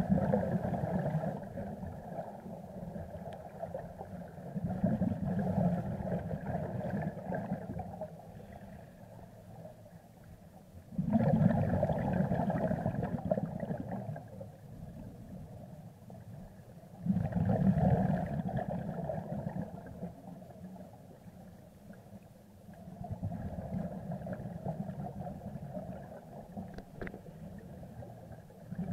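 Scuba regulator exhalation bubbles gurgling, heard underwater, in bursts about every six seconds with quieter stretches between.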